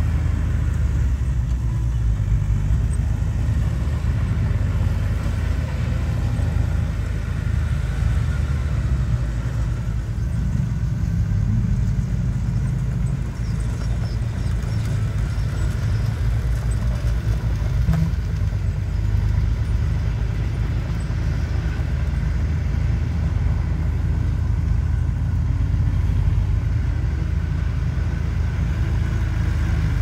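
Small crawler bulldozer's diesel engine running steadily as it pushes dirt, a deep continuous rumble.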